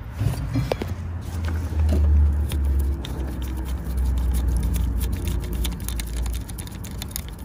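Light metallic clicks and scrapes of a socket on an extension bar as new stretch bolts are wound in by hand on a BMW M57 diesel's crankshaft pulley, over a steady low rumble.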